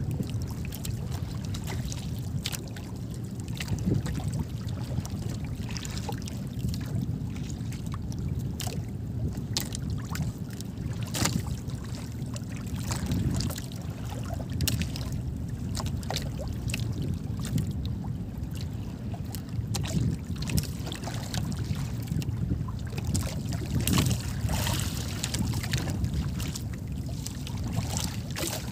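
Water lapping and splashing against the hull of a small outrigger boat drifting on a choppy sea, with many irregular small slaps and knocks over a steady low wind rumble on the microphone.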